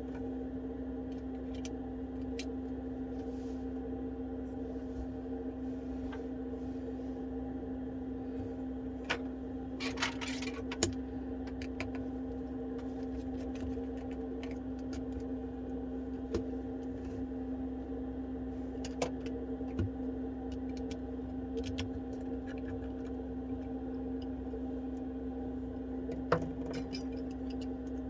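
Steady electrical hum throughout, with scattered light clicks and taps of small metal tools, such as a screwdriver and tweezers, working on the internals of an opened iPhone 12. A sharper click comes a few seconds from the end.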